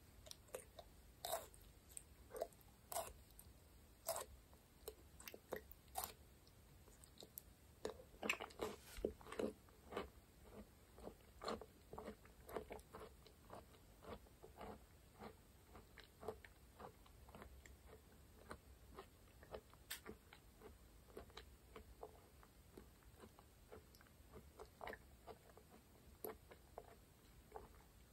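Close-miked mouth sounds of biting into and chewing slippery aloe vera gel: a long string of short, soft clicks, thickest from about eight seconds in.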